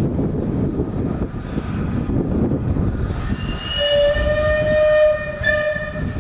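Steam locomotive whistle sounding one long blast of a couple of seconds, starting just past halfway, over the steady rumble of the train.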